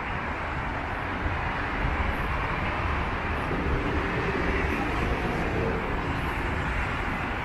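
Steady road traffic noise from a busy city road, an even rushing hum with a low rumble underneath.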